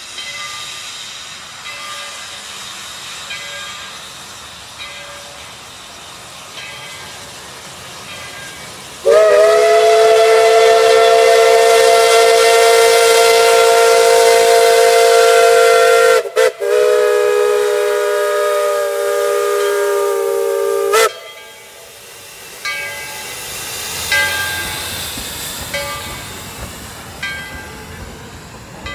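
Tweetsie Railroad #12 steam locomotive blowing its steam whistle: a long blast with a slight drop in pitch at its start, a brief break, then a second shorter blast that cuts off sharply. Before and after it, the quieter running sound of the train approaching and rolling past.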